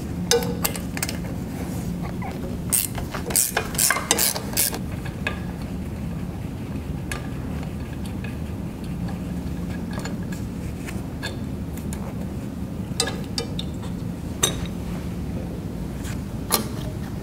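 Steel wrench and socket clinking and clicking against the nuts and bolts of a hydraulic reservoir mount as they are loosened. The clicks come in a busy cluster over the first few seconds, then only now and then, over a steady low hum.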